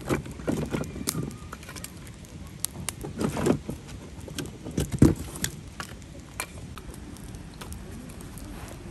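Campfire crackling with scattered sharp pops, along with a few dull low thuds, the loudest about five seconds in.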